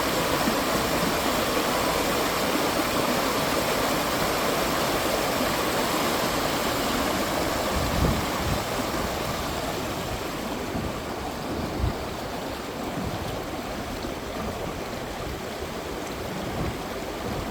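River water rushing steadily, growing a little fainter and duller in the last several seconds. Two brief, dull low thumps come about eight and twelve seconds in.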